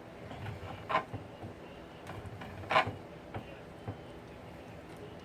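Kitchen knife clicking against a glass cutting board as food is cut: a scatter of sharp, hard clicks, the two loudest about a second in and near the middle.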